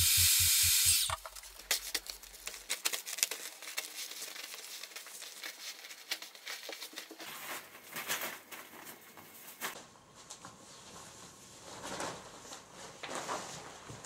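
Small electric air pump running with a steady hiss and a fast pulsing hum, deflating a PVC inflatable, then switched off about a second in. After it, thin PVC film crinkles and rustles irregularly as the deflated plastic is folded and stuffed into a cloth bag.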